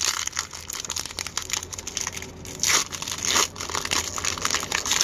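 Foil wrapper of a hockey card pack being torn open and peeled off by hand: a continuous crinkling crackle, with two louder rips a little past halfway.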